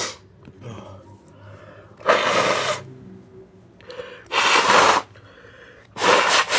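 A person sneezing, muffled: three loud bursts about two seconds apart, each under a second long.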